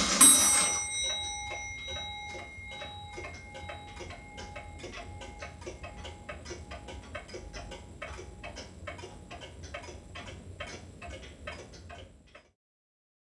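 Antique pendulum shelf clock giving the last stroke of its hour strike, the ringing note dying away over a few seconds, then ticking steadily. The sound fades out near the end.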